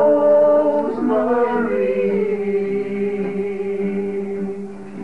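Male voices singing together, holding a long final note of the song that slowly fades toward the end.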